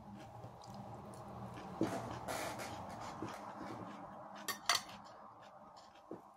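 Metal fork and knife scraping and clinking against a ceramic plate as salad and fish are cut and picked up, with two sharp clinks about four and a half seconds in.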